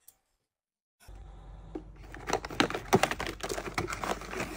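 A quick, irregular run of sharp clicks and taps over a low steady hum, starting abruptly about a second in after a silent gap and growing busier towards the end.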